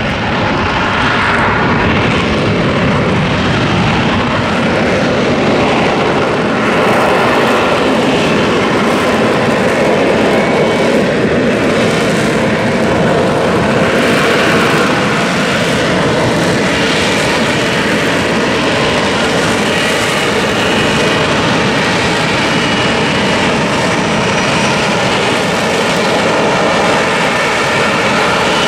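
Lockheed Martin F-35B Lightning II hovering in STOVL mode: its Pratt & Whitney F135 jet engine and shaft-driven lift fan run steadily and very loudly, with a faint high whistle over the jet noise.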